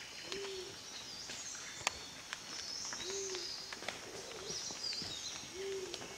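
Wild birds calling: one low cooing note repeated three times, about two and a half seconds apart, among other birds' higher chirping calls.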